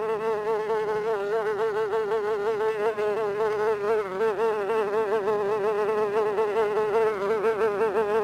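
Buzzing of a small flying insect, a gnat sound effect, running continuously with its pitch wavering quickly up and down as if it were circling.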